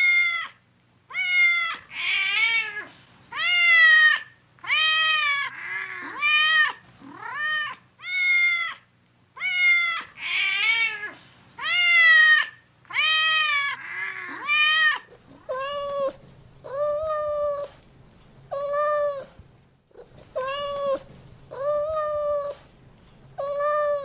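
Cat meowing over and over, about one meow a second, each call rising then falling in pitch. From about two thirds of the way in, the meows are lower and flatter.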